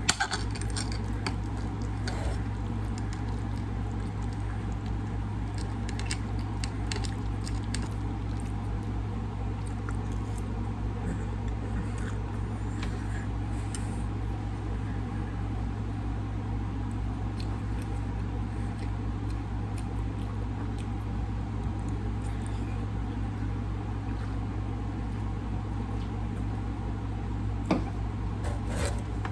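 Someone eating: quiet chewing and mouth sounds with scattered faint clicks, over a steady low hum.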